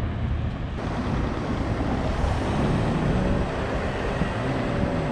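Road traffic, with a car driving past in the second half.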